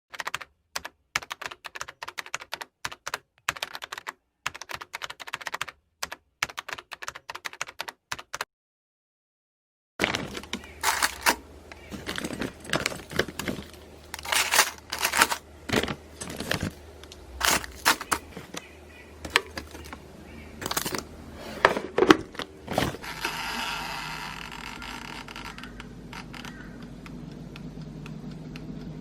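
Kitchen work sounds: rapid light clicking and tapping, then utensils and dishes knocking and clattering, and from about two-thirds of the way in a steady hiss.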